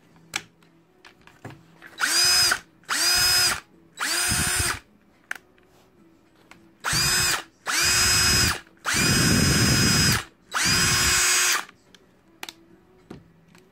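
DeWalt DCD780 cordless drill's motor run in seven short trigger pulls, each spinning up quickly to a steady whine and winding down on release. Three pulls come close together, then after a pause four more, one of them a little longer. This is a test run after a repair, and the drill runs normally.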